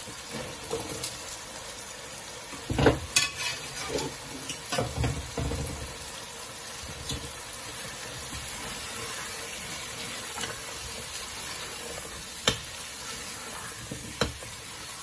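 Boiled chickpeas and potatoes sizzling as they fry in tomato masala in a metal pot, stirred with a metal slotted spoon that scrapes and knocks against the pot. There is a run of louder knocks and scrapes between about three and six seconds in, and two sharp taps near the end.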